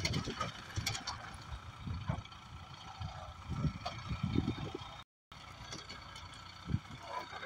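Wind buffeting the microphone in irregular low gusts, over the faint steady running of an ACE hydra mobile crane's diesel engine.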